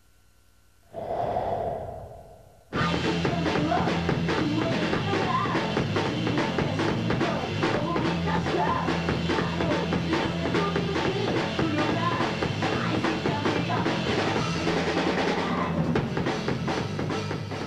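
Band music with a drum kit, starting suddenly about three seconds in and running at a steady level, after a short breath-like sound.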